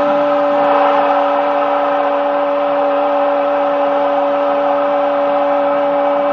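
A football commentator's long drawn-out "gol" cry, held on one unbroken note, over a roaring stadium crowd.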